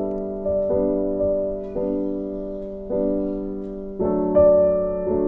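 Background music: soft piano chords, a new chord struck about once a second, each fading away.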